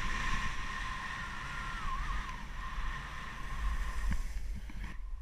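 Skis running fast over groomed snow, with wind buffeting the camera's microphone: a steady low rumble and hiss, with a faint steady whine running through it. The noise eases off near the end.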